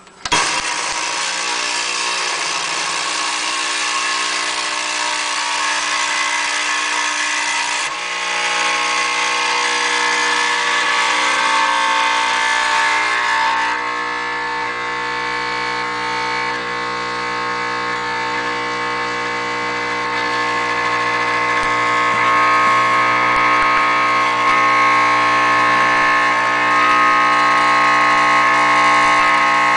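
Gaggia espresso machine's vibratory pump buzzing steadily while pulling a shot of espresso, cutting in abruptly just after the start. Its tone shifts a couple of times as the shot runs, and it grows a little louder in the later part.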